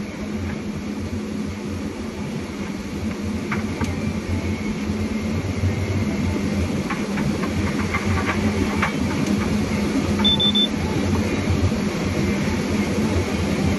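Forestry harvester's diesel engine and hydraulics running with a steady low drone as the processing head feeds and delimbs snow-covered logs. A few sharp knocks come in the middle, and a brief high beep sounds about ten seconds in.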